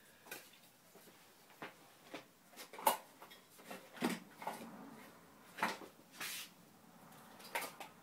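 Scattered clicks and knocks from a can of spray mount adhesive being handled and its nozzle pressed, with one short hiss about six seconds in: the clogged nozzle is still not spraying properly.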